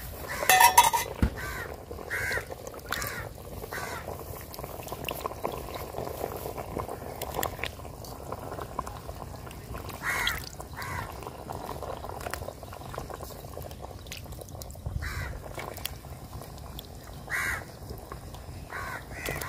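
Pieces of wallago catfish going into a pot of boiling curry, with the loudest splash about half a second in, over a steady bubbling. Short, harsh bird calls come a dozen or so times, in clusters near the start and then every few seconds.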